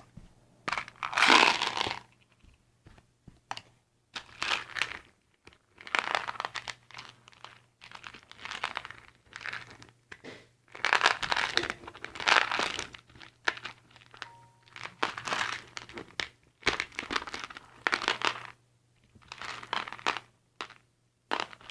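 Crinkly plastic packaging being crumpled and worked in repeated irregular bursts as Skittles candies are crushed inside it.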